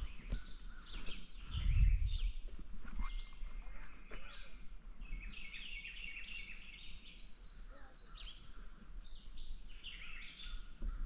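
Woodland ambience: a steady high-pitched insect drone with birds chirping repeatedly over it. A brief low rumble, like wind or handling on the microphone, comes about two seconds in.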